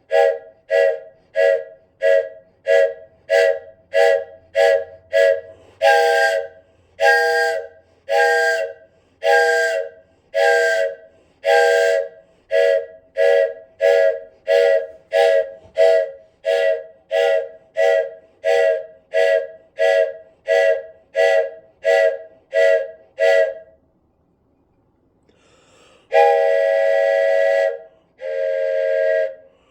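Wooden train whistle blown in short, quick puffs, about two a second, each sounding a chord of several close tones. The puffs slow and lengthen for a stretch in the middle; near the end, after a pause of about two seconds, come a few longer blasts.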